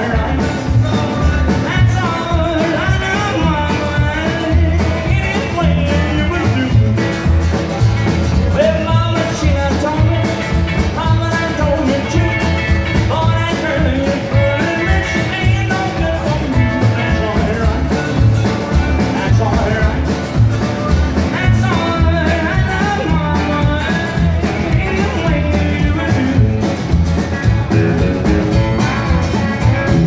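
Live band music in a rock-and-roll/country vein: a man singing lead over acoustic guitar, electric guitar, upright double bass and drum kit, with a steady beat.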